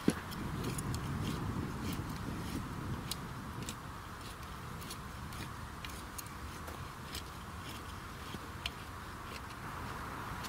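Garden hoe scraping and chopping through loose, dry soil, with a sharp knock right at the start and many small scattered clicks of grit and stones.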